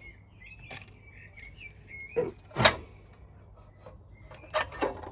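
Knocks and clicks from parts of a lawn mower being handled as it is taken apart, the loudest about two and a half seconds in and two more near the end, with faint high chirps in the first two seconds.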